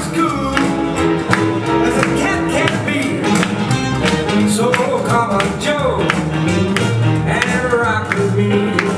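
Swing dance music with a singing voice over a steady beat.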